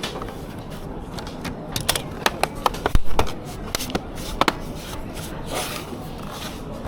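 Scattered sharp clicks and taps of small parts and tools being handled, with a heavier thump about three seconds in, over a steady background hiss.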